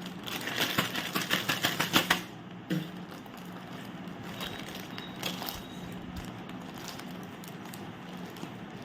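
Plastic Kurkure snack packet crinkling and crackling as it is worked open with the teeth. A dense rustling burst fills the first two seconds, then only scattered faint crinkles sound over a steady low hum.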